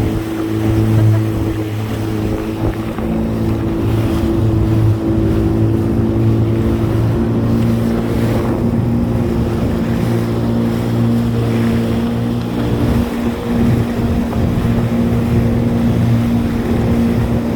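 Jet ski engine running steadily, with wind noise on the microphone.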